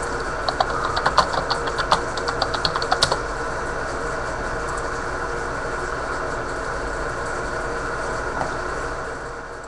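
Computer keyboard typing: a quick, irregular run of about twenty clicks over the first three seconds, over a steady hum that eases off near the end.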